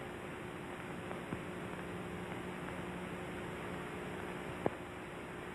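Steady hiss and low hum of an early-1930s film soundtrack, with one faint click about four and a half seconds in.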